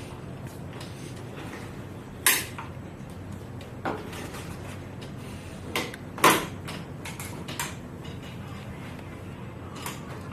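Portable tabletop projector screen being handled: a handful of sharp clicks and knocks, the loudest about six seconds in, over a low steady hum.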